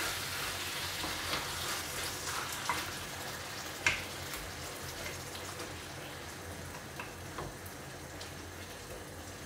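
Pork pieces sizzling as they fry in a hot pan, the hiss easing slightly over the seconds. A wooden spatula stirring them gives a few light knocks against the pan, the sharpest about four seconds in.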